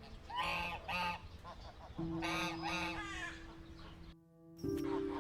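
Swans giving a series of short honking calls, with a brief drop-out about four seconds in.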